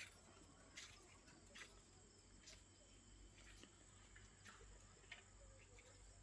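Near silence: a faint low hum with faint short ticks about once a second, irregularly spaced.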